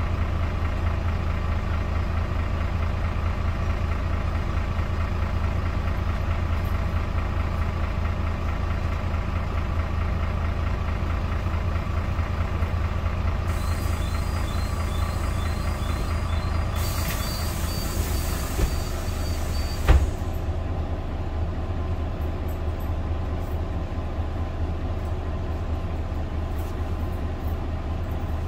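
Iveco Cursor 8 diesel of an Irisbus Citelis city bus idling, heard from inside the cabin. About halfway in, a run of quick warning beeps and a pneumatic hiss sound, ending in a thump about two-thirds through, as the air-operated doors close.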